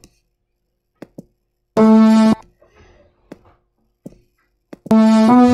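Cartoon sound effect from an animated bumper's soundtrack, captioned as the animals being happy: a bright, steady pitched tone lasting about half a second, then a second one starting near the end. A few faint clicks fall between them.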